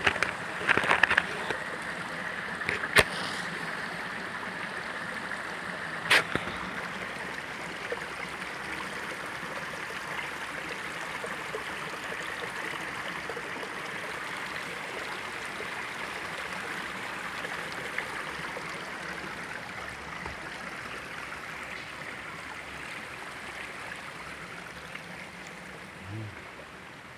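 Shallow stream running over rocks, a steady rushing that fades toward the end. A couple of sharp clicks sound in the first several seconds.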